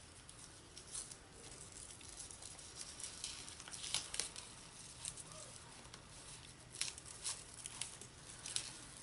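Faint rustling and scattered light clicks as a ribbon is tied into a bow around a bundle of plastic markers.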